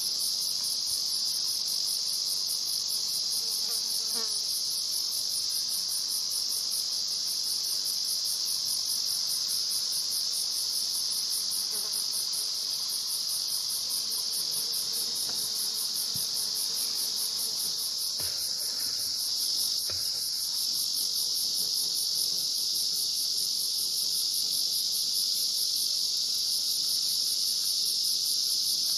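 Steady chorus of singing insects: a continuous high-pitched hiss with a second, higher song pulsing rapidly and evenly above it.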